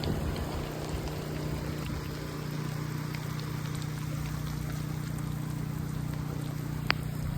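Steady storm rain falling, over a steady low hum, with one sharp click about seven seconds in.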